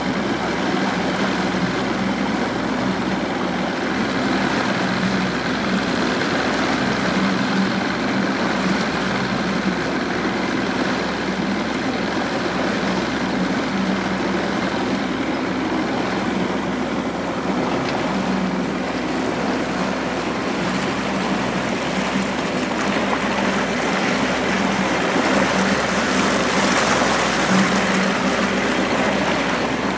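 Motorboat under way: its engine runs with a steady low drone beneath the rush of water along the hull. The rush grows louder for a few seconds near the end.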